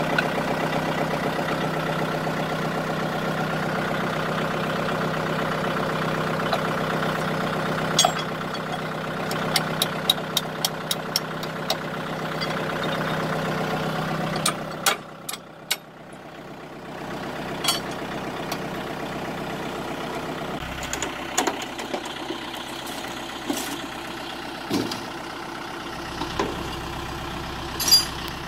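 Kubota M6040SU tractor's diesel engine idling steadily. Its sound drops off sharply about halfway through and carries on fainter. Over it come light metal clicks, a quick run of them near the middle, and a few clanks from the hitch and drawbar being worked on.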